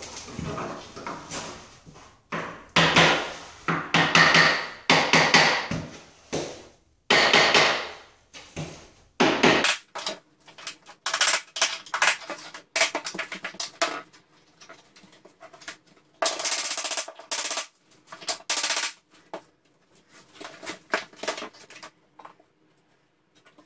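Hammer knocking on click-together laminate flooring planks to seat the joints, a long run of knocks in groups with short pauses. About ten seconds in the knocks turn sharper and thinner.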